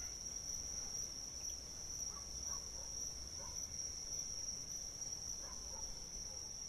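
Crickets chirring in a steady, unbroken high-pitched drone.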